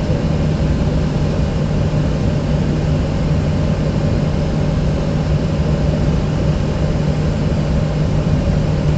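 Steady cockpit noise of a Boeing 737 on the ground with its jet engines at idle before takeoff: an even rush with a constant low hum.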